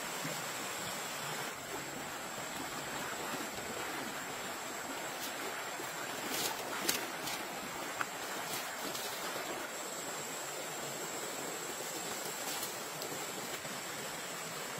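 Shallow stream running steadily over stones, with a few short sharp clicks and knocks about halfway through.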